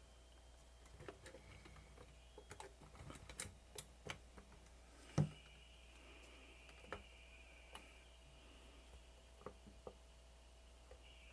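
Faint, irregular small clicks and ticks from a Sharp VL-E620 Video8 camcorder on the bench as it powers up and briefly starts working, the loudest about five seconds in. A faint steady high whine sets in at about that click, over a low electrical hum.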